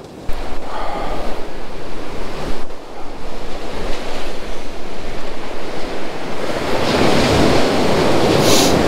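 Waves breaking and washing up the beach, with wind buffeting the microphone; the surf swells louder about seven seconds in.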